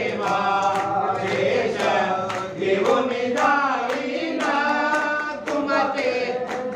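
A group of people singing a devotional song together, with hand claps keeping time.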